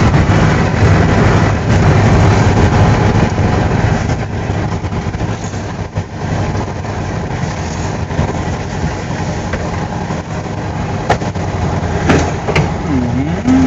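Volkswagen Beetle's air-cooled flat-four engine running under load on a rough dirt track, heard from inside the cabin. It is loudest in the first few seconds, then settles a little lower. A few sharp knocks come near the end.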